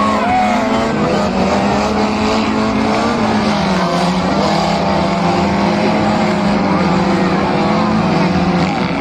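Engines of several demolition-derby cars running and revving at once, their pitches rising and falling over one another, above a steady engine drone.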